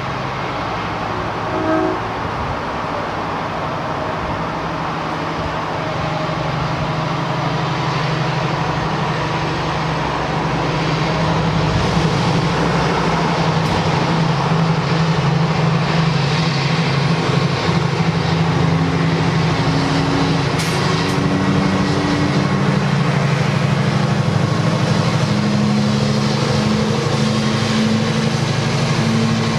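Class 70 diesel-electric locomotive's GE PowerHaul V16 engine running under power as it hauls a container train past. The engine grows louder about ten seconds in as it nears, and its note rises slightly near the end.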